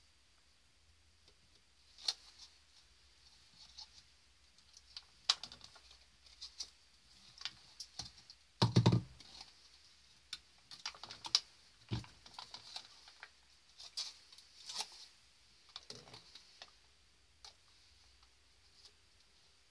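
Thin plastic cups being handled and set down in a deep fryer's wire basket: scattered clicks and crinkles of plastic, with a heavier knock about nine seconds in.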